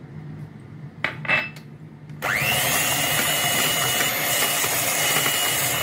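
Electric hand mixer switched on about two seconds in: its motor whine rises quickly to speed, then holds steady as the beaters whirr through wet cake batter. A couple of brief knocks come just before.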